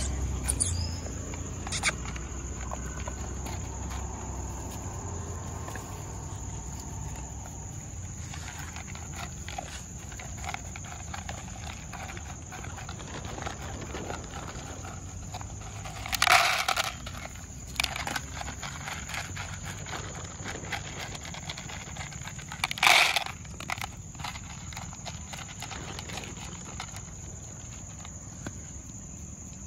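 Dogs crunching dry kibble from plastic bowls, a string of small crunches and clicks, over a steady high insect drone. Two short, louder noisy bursts stand out, about 16 and 23 seconds in.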